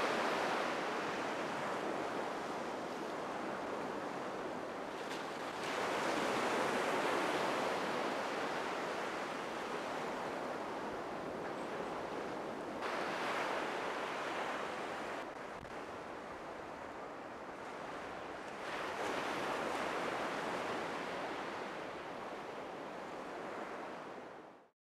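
Ocean surf washing on a sandy beach, a steady rush that swells as waves break about every six seconds, fading out just before the end.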